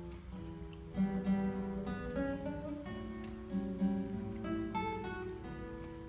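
Solo classical guitar played fingerstyle: a melody of plucked, ringing notes over a repeating bass line.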